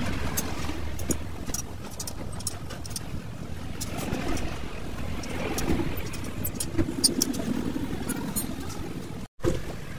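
Steady rumble of a vehicle engine with slow swells, under scattered light metallic clicks of a hand tool working on a truck leaf spring pack. The sound cuts out for an instant near the end.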